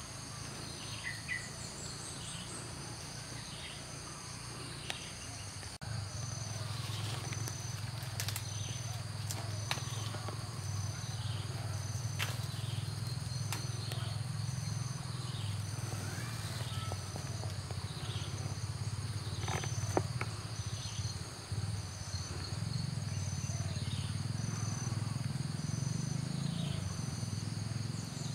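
Insect chorus: a steady high buzz with a high pulsing trill repeating about once a second, and short falling calls about once a second over it. A low rumble comes in about six seconds in and carries on underneath.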